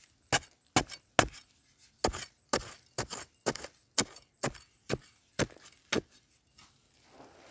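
A metal digging bar jabbing into dry, stony soil to dig out a wild yam tuber: about fourteen sharp strikes, roughly two a second, stopping about six seconds in.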